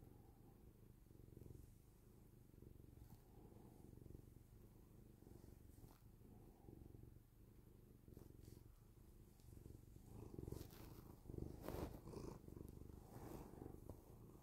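Tabby cat purring faintly while being stroked, a low steady purr that grows louder about ten seconds in. A few brief scratchy noises come near the end.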